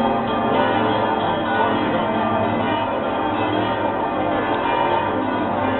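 Church bells ringing continuously, many bells sounding together in a dense, unbroken peal.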